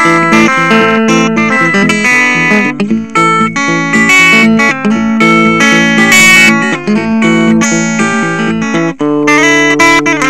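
Guitar music: plucked guitar notes changing quickly, with several notes sounding at once.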